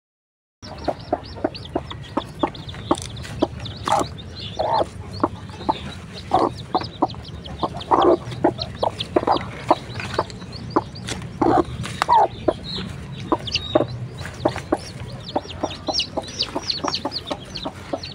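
Chickens: a hen clucking in short, repeated calls, with newly hatched chicks peeping in many short high cheeps that grow busier near the end.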